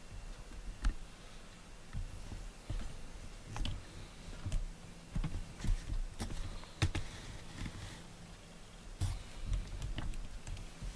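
Camera handling noise: irregular soft clicks and low thumps, about a dozen, as the camera is moved and repositioned, over a faint steady hum.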